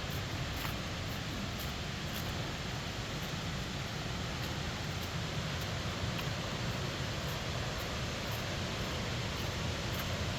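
Steady rushing roar of a large waterfall plunging into a gorge, an even noise heaviest in the low end that holds at the same level throughout.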